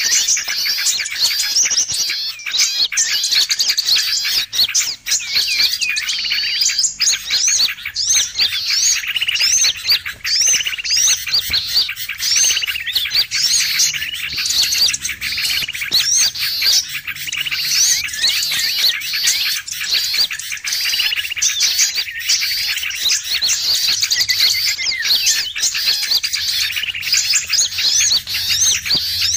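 Bird-lure recording of a noisy crowd of small birds with sooty-headed bulbuls mixed in, chattering over one another: a dense, unbroken run of quick rising chirps, several a second, the agitated commotion played to draw wild birds in to a trap.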